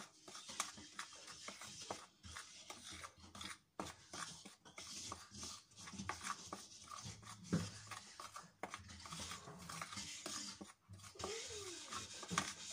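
A spoon stirring a dry flour mix in a plastic bowl: a faint, irregular scraping and rubbing with short pauses between strokes.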